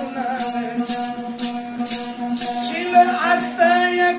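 A man singing a Marathi song over the steady drone of a one-string ektara, with a jingling percussion rhythm at about two strokes a second. His voice comes in with a long held note about two and a half seconds in.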